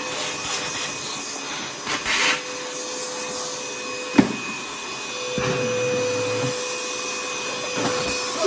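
Ozito battery-powered vacuum cleaner running with a steady whirring hum, with a sharp knock about four seconds in and a slightly louder stretch a second later.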